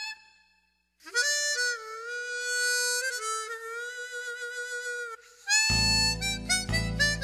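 Harmonica playing: after about a second of silence, one long held note for about four seconds, then a run of shorter notes near the end.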